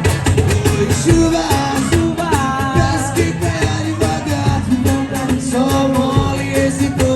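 Live band playing a song: guitar, bass and drums, with a wordless sung melody line over them.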